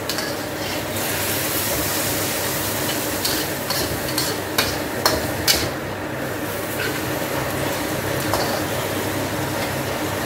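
Diced pork belly sizzling as it is stir-fried in a wok, with a metal spatula scraping and clicking against the pan a handful of times in the middle.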